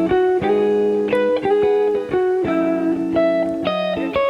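Background music: a guitar playing sustained chords that change about every half second.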